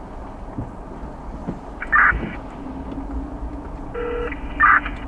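Two short electronic beeping tone bursts, about two seconds apart, over a low steady rumble.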